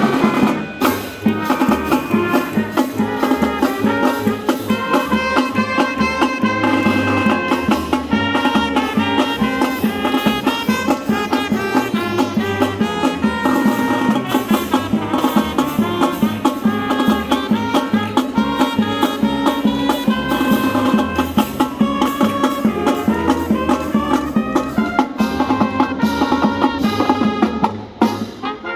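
Upbeat music with brass and drums over a steady beat, dropping in level near the end.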